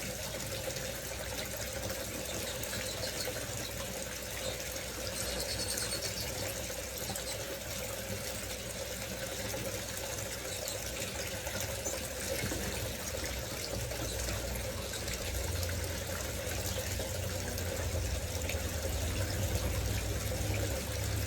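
Water fountain running, a steady, even splash of falling water. A low rumble underneath grows stronger about fifteen seconds in.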